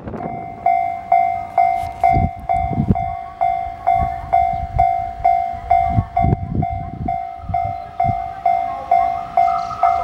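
Japanese level-crossing warning bell ringing, a steady electronic ding about twice a second, while a 211-series electric train approaches. A few low thuds come in the middle, and the train's running noise rises faintly near the end.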